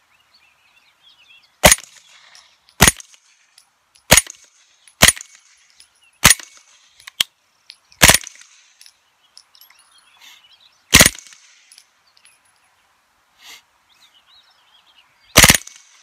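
Suppressed 9mm AR-pattern carbine on a CMMG 9mm lower, fitted with a Bowers Vers 9S silencer, firing subsonic 9mm rounds semi-automatically. Eight single shots come at uneven spacing, about a second apart at first, then with longer gaps of three to four seconds near the end.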